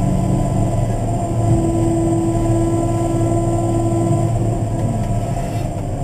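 Cat motor grader's diesel engine running steadily, heard from inside the cab, with a steadier higher hum that comes in over it for a few seconds in the middle.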